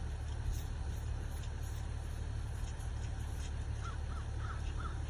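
Steady low hum of an idling vehicle, heard from inside the cab. About four seconds in, a bird calls in a quick run of four or five short notes.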